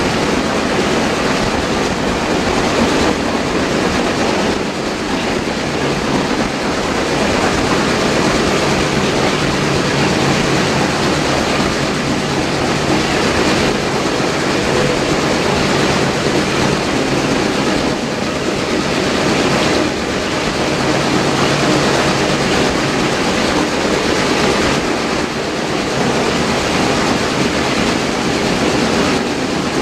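Heritage passenger train running at speed, heard from aboard a carriage: a loud, steady rolling noise of wheels on rail.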